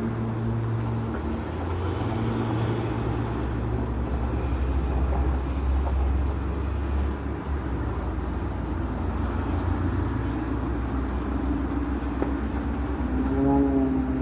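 Propeller airplane engine droning overhead during aerobatics, its low pitch dropping and rising as the plane manoeuvres. Near the end a higher, stronger engine tone comes in.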